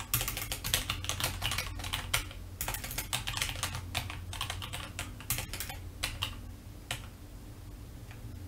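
Typing on a computer keyboard: a fast run of key clicks for about five seconds, thinning to a few last keystrokes around seven seconds in.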